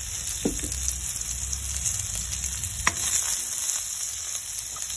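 Sliced onion, ginger and garlic sizzling in hot oil in a wok, stirred with a metal spoon that knocks against the pan a couple of times, about half a second and three seconds in.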